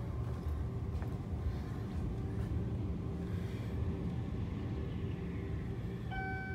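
Electric commuter train moving slowly through the station below, heard as a steady low rumble. Near the end a clear, steady ringing tone starts up over it.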